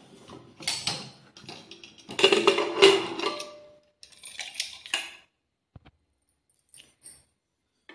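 A United aluminium pressure cooker lid being unlocked and lifted off after the pressure has dropped: a few bouts of metal scraping and clattering over the first five seconds, then only faint ticks.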